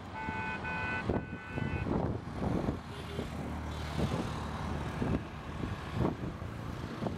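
A multi-tone horn honks in a few short bursts within the first two seconds, over a steady low rumble of traffic and wind noise.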